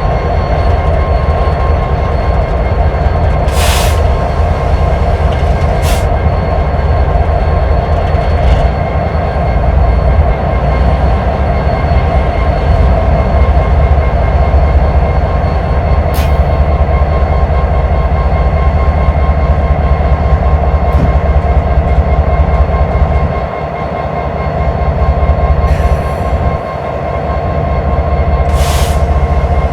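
CPKC freight train of empty coke cars pulling away behind its KCS diesel locomotives, a GE ES44AC and an EMD SD70ACe: a steady heavy rumble with a thin whine over it and a few sharp clanks. Strong wind buffets the microphone.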